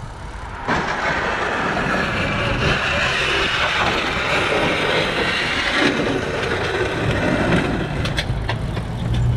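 City traffic and road noise heard from a moving bicycle's camera, a steady rushing hiss over a low rumble that swells sharply about a second in. A few sharp clicks come near the end.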